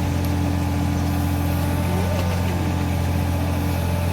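Caterpillar 303 mini excavator's diesel engine running steadily at working speed. A brief whine rises and falls about two seconds in, and a steady higher tone drops out shortly before the end.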